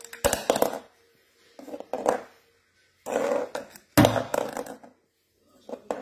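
African grey parrot making angry growling noises in about five short bursts while knocking a plastic cup about on a wooden floor, with sharp knocks among them.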